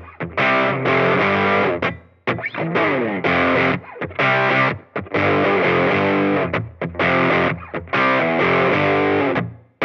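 Gibson SG electric guitar played through an EarthQuaker Devices Crimson Drive germanium overdrive pedal into a Fender Champ amp, with distorted, saturated chord riffs. The riffs break off in short stops, and a quick slide down the neck comes about two and a half seconds in.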